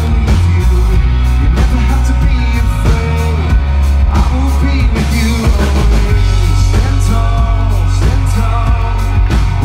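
Live rock band playing loudly: electric guitars, a drum kit with heavy bass, and a lead singer. It is heard from among the concert crowd.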